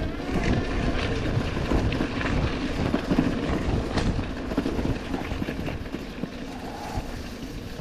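KuKirin V1 PRO electric bike with a rigid front fork rattling and clattering over rough off-road ground under throttle, with a low rumble and many small knocks, easing slightly after about five seconds.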